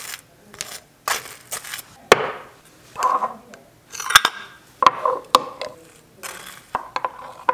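A table knife scraping across crisp toast in short scratchy strokes, spreading butter and strawberry jam, with a few sharp clicks and clinks of a metal screw lid and the knife against a glass jam jar.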